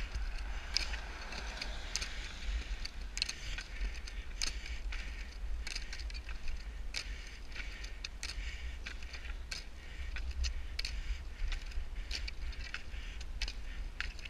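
Roller-ski pole tips clicking sharply on asphalt, one to two strikes a second in an uneven rhythm, over a steady low rumble.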